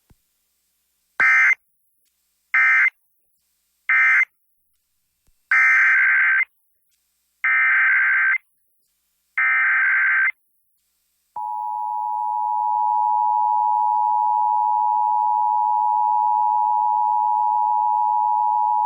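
Emergency Alert System tones: three short squawks of SAME digital data, the end-of-message code, followed by three longer SAME header bursts. These are followed, about 11 seconds in, by the steady two-tone EAS attention signal.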